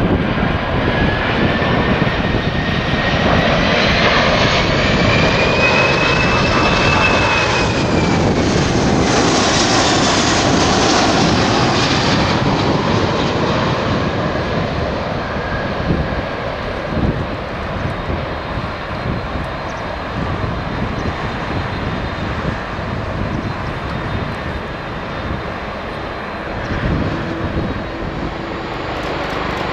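Four-engined Airbus A340 jet airliner on landing approach passing close by. Its engine whine rises in pitch, peaks about seven seconds in and falls away as it passes, over a dense jet rumble that eases off slowly afterwards.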